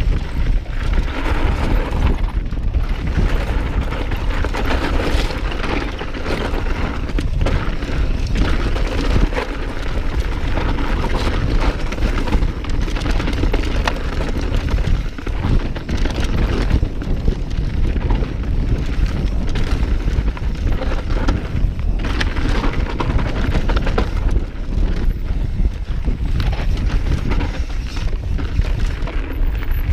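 Wind buffeting the camera microphone over the rumble of a Yeti mountain bike's tyres on dirt and rock singletrack at speed, with frequent knocks and rattles as the bike hits rocks.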